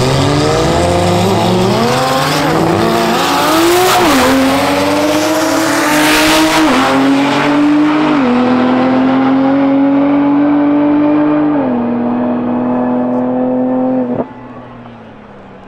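Drag race cars launching hard off the starting line and accelerating away down the strip, engine pitch climbing and dropping back at each of several upshifts. The sound becomes much quieter suddenly about fourteen seconds in.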